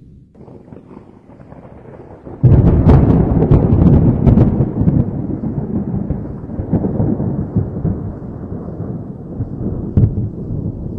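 Thunder: a low rumble breaks into a sudden loud crackling clap about two and a half seconds in, then rolls on and slowly fades, with a smaller sharp crack near the end.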